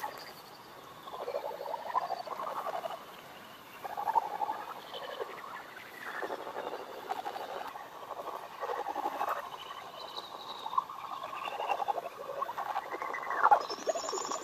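Bat detector crackling with repeated bursts of rapid clicks as bats echolocate around the roost, each burst lasting up to about a second.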